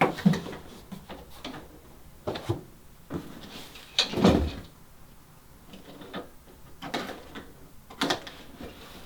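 Mitre saw stand parts (brackets, supports and a roller) being handled and set down while unpacking: scattered knocks and clunks, the loudest a dull thump about four seconds in.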